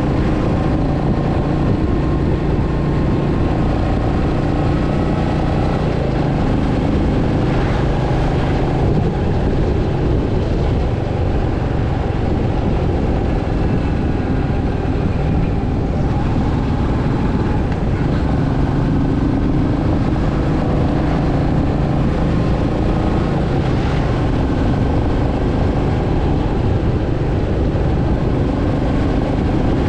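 Royal Enfield Meteor 350's 349 cc single-cylinder engine and exhaust running steadily at road speed, heard from on the bike. Its note shifts a few times as the throttle is opened and eased.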